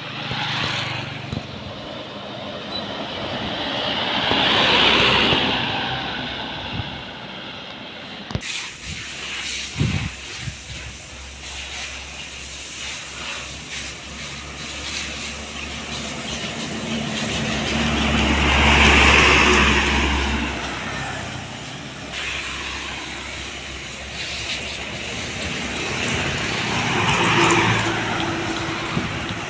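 Heavy vehicles passing one after another on a road: three passes, each swelling and fading away. The loudest pass, near the middle, has a deep engine rumble.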